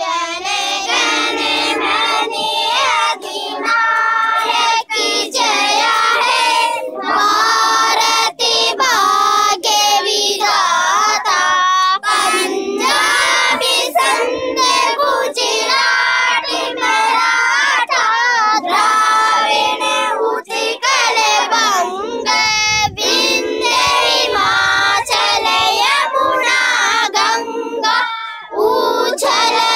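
A group of schoolchildren singing a song together, starting at the very beginning, with a short break for breath near the end.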